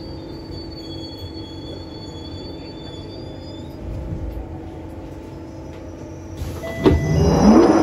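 London Underground train standing at a station: a steady electrical hum with a faint high whine. About six and a half seconds in, a much louder train noise starts, with a jolt and then a whine that rises in pitch as a train gets moving.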